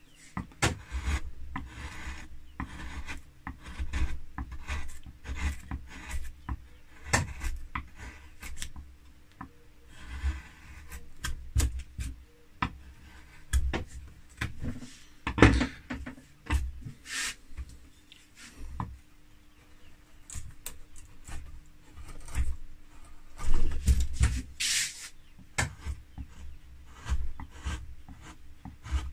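Carving gouge cutting into linden wood by hand while roughing out a carved leaf: a run of short, irregular scraping cuts, with a few longer shaving strokes.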